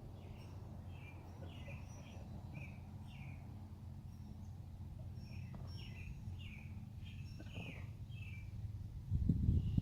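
Small bird chirping repeatedly: short, high, downward-slurred chirps about two a second, pausing for a second or so midway, over a steady low rumble. The rumble swells louder near the end.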